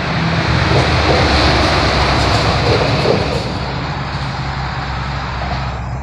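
Road traffic crossing a concrete highway bridge: a steady rumble and tyre hiss that swells in the first second or two and slowly eases off.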